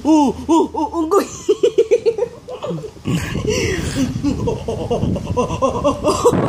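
Someone laughing heartily, a run of quick repeated ha-ha pulses that loosen into breathier laughs later on.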